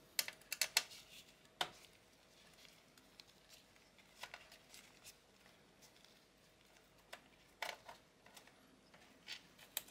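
Faint, scattered clicks and taps of gloved hands handling wires and small parts on a 3D printer's control board, with a quick cluster in the first second.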